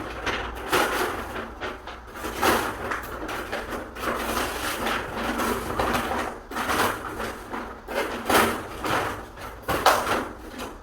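Irregular scraping and rubbing strokes of hand work on a door, coming about once a second and unevenly loud.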